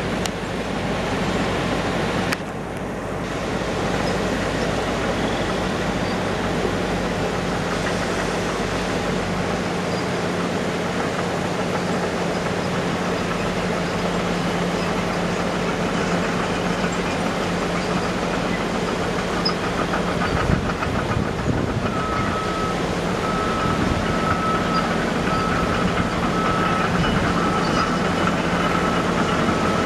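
Diesel dump truck engine running steadily with a constant hum while its hydraulic hoist raises a box loaded with rip-rap boulders. From about two-thirds in, a back-up alarm beeps repeatedly.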